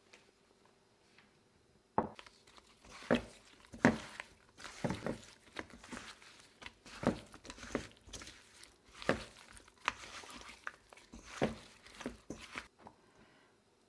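A bare hand tossing thin potato slices with flour in a stainless steel bowl: irregular soft slaps and rustles of the slices, with sharper knocks where they hit the steel. It starts about two seconds in and stops shortly before the end.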